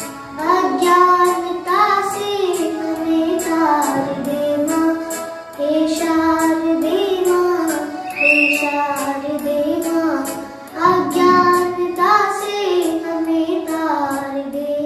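A boy singing a devotional song in sustained, gliding notes over an accompaniment with a steady beat.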